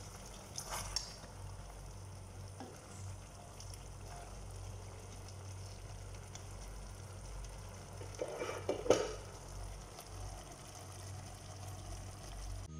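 Chicken feet cooking in a thick sauce in a stainless steel pot, sizzling faintly over a low steady hum, while a spatula stirs them and scrapes against the pot, most audibly just under a second in and again around eight to nine seconds in.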